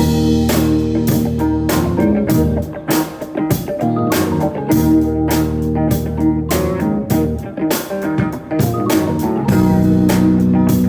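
A band playing a song with guitar, bass guitar and a drum kit keeping a steady beat.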